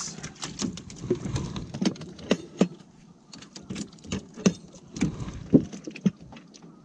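Irregular light knocks and taps on an aluminium boat, a few of them sharper, thinning out near the end.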